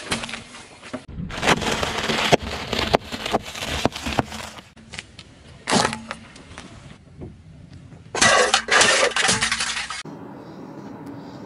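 Objects being crushed under a car tyre on asphalt, in several short clips that cut abruptly into one another: crackling, crunching and popping with tyre grit. Near the end it is quieter, with the tyre rolling slowly on asphalt.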